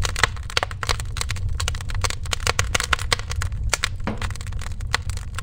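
Wood fire crackling and popping: many irregular sharp cracks over a steady low rumble.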